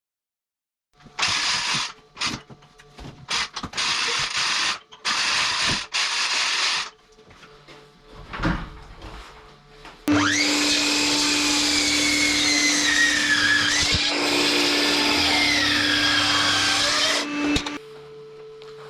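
Power tool cutting oak timber: several short bursts of a second or less, then a steady run of about seven seconds whose pitch dips and recovers under load before cutting off.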